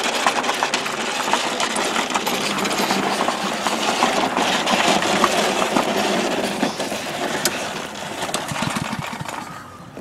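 Walk-behind gasoline lawn mower's small engine running steadily as it is pushed over gravel, with many sharp clicks and rattles throughout. The engine, just brought back to life after the mower would not start, gets quieter near the end.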